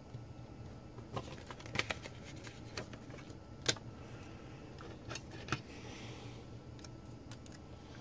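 Faint bench handling noise: a pen writing on paper, then scattered light clicks and taps as a USB cable's plug and connector are unplugged and handled.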